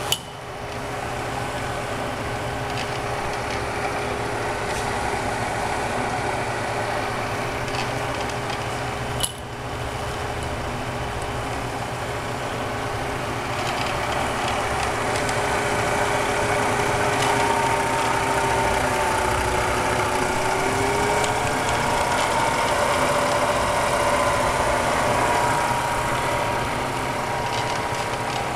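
Bridgeport EZ-Trak DX CNC knee mill running under power: a steady motor hum with a whine. The whine dips and then rises in pitch a little past two-thirds of the way through, and a higher whine joins it. Two brief sharp clicks, one at the very start and one about nine seconds in.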